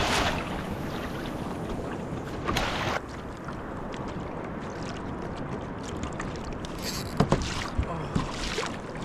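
Water splashing and lapping against a kayak, with a longer splash about two and a half seconds in and a few sharp knocks near the end.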